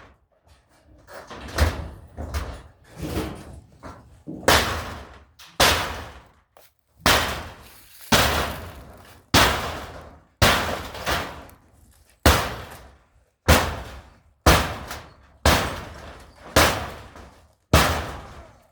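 Repeated heavy hammer blows on the barn's structure, a steady run of sharp bangs about one a second, each with a short ringing tail, as the building is knocked apart by hand.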